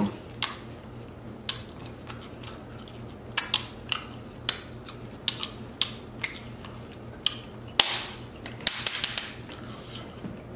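Mouth sounds of someone eating buffalo chicken wings close to the microphone: irregular sharp smacks and clicks of chewing and lip-smacking, with a quick run of them near the end.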